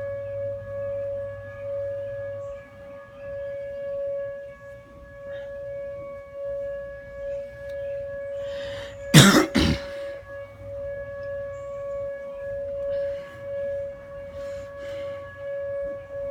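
Outdoor tornado warning siren sounding a steady wailing tone that swells and fades slightly. About nine seconds in, two brief loud bursts, like a cough, stand out close to the microphone.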